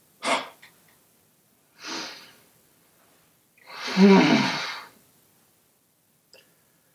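A man sobbing: three breathy, gasping sobs, the third, about four seconds in, the longest and loudest with his voice breaking through.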